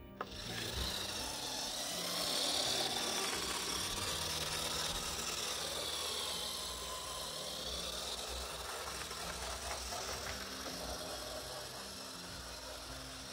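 Vintage Bachmann HO-scale F7A locomotive's ring-field motor and gears whirring as it runs slowly along the track, freshly cleaned and lubricated. The whir is steady, dips a little in pitch around the middle and fades somewhat toward the end as the locomotive moves off.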